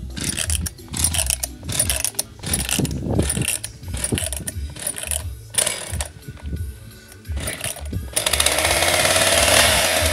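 Two-stroke chainsaw being pull-started: the recoil starter rasps through several pulls, then the engine catches about eight seconds in and runs loudly. Background music with a steady low beat plays underneath.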